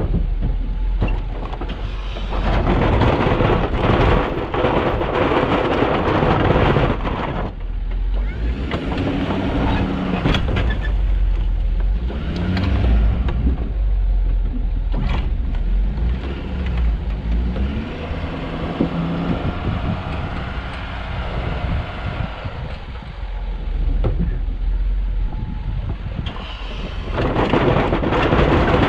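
Snowplow truck driving, its engine running with a steady low rumble. The engine pitch rises and falls in places, and louder rushing noise comes and goes, once early on and again near the end.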